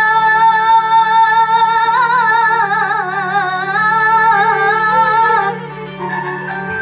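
A girl's solo voice sings one long, ornamented note of an Arabic sholawat, wavering in pitch, over a steady low drone. The voice breaks off about five and a half seconds in, leaving quieter held tones.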